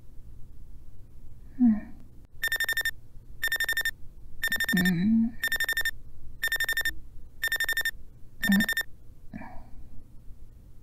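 Smartphone alarm beeping: seven short, steady electronic beeps about one a second, starting about two seconds in and stopping near the end. Short sleepy vocal sounds from someone waking are heard between and after the beeps.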